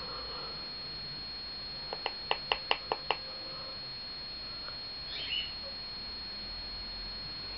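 A quick run of about seven short chirps, about five a second, then one fainter chirp a couple of seconds later, over a faint steady high-pitched whine.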